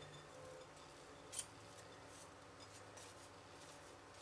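Near silence: a faint steady low hum, with one soft tick about a second and a half in.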